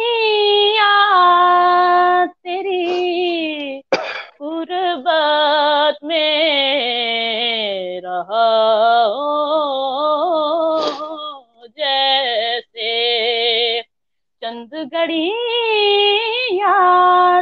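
A boy singing a naat unaccompanied: long held melodic phrases with ornamented pitch turns, broken by short breaths and pauses, heard over a video-call link.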